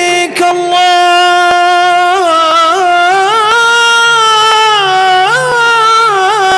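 A man singing a madh (Islamic praise song) into a microphone: one long, unbroken melismatic phrase of held notes that slowly rise and fall, with a short break about half a second in.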